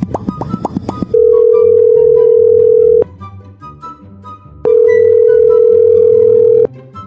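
Two long, steady electronic tones at one pitch, each about two seconds, with a short gap between, over background music with a moving bass line.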